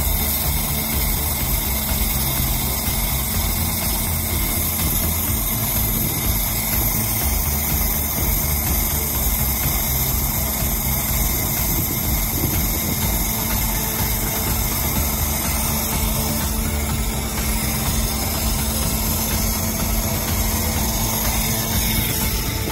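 An engine idling steadily: a low rumble with a constant hum and a high hiss over it, unchanging throughout.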